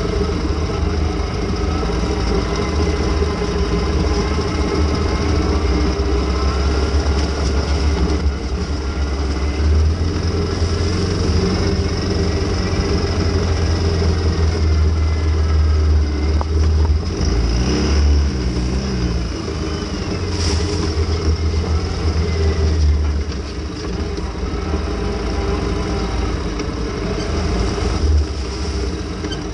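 ATV engine running under load as it climbs and drives through mud, its pitch rising and falling with the throttle. A single sharp knock comes about twenty seconds in.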